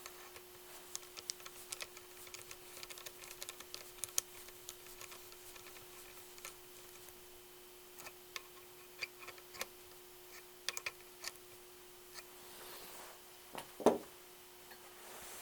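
Light, irregular metallic clicks and ticks of a 1/4 inch socket tool and small hardware as standoffs are run onto bracket studs, with one louder knock near the end. A faint steady hum lies underneath.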